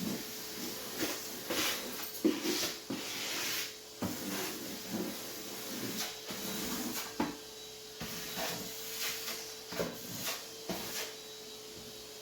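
Kitchen cleaning sounds: irregular knocks, bumps and brief swishing or rubbing strokes over a faint steady hum.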